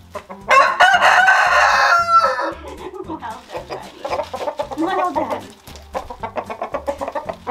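A rooster crows once, a loud crow lasting nearly two seconds, followed by chickens clucking and a run of quick, short clucks near the end.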